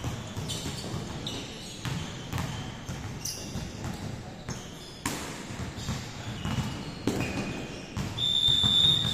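Several basketballs bouncing unevenly on a gym floor as many players dribble at once, with short squeaks. Near the end comes a louder, steady high squeal lasting about a second.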